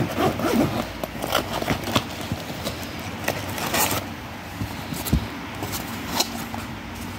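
Handling noise from a zippered fabric tool case and a small cardboard box: rustling, scraping and light knocks, with a zip being run partway through.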